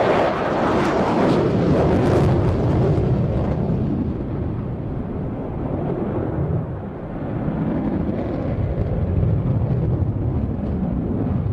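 F-14B Tomcat's twin General Electric F110 turbofans in full afterburner, heard as loud jet noise. The first few seconds crackle. After about three seconds the high end fades as the jet turns away, leaving a low rumble.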